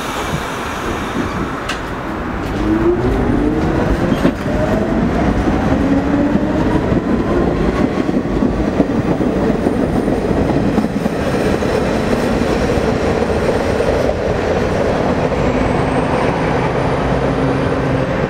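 R46 subway train pulling out of the station: its traction motors give a whine that rises in pitch as it accelerates, over the rumble and clatter of the wheels on the rails. The sound grows louder a couple of seconds in as the train gets moving.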